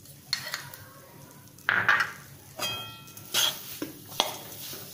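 Flat metal spatula scraping and stirring ghee-roasted finger millet (ragi) flour and almond slivers in a kadhai, in several separate strokes. A sharp clink with a brief ring comes a little past halfway.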